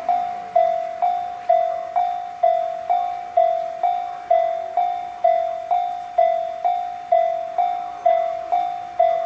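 JR standard electronic level-crossing alarm ringing, about two strikes a second, each a sharp ding that fades, alternating between two close pitches. This is the changed tone the alarm gives when both direction arrows are lit, the sign of trains approaching from both directions.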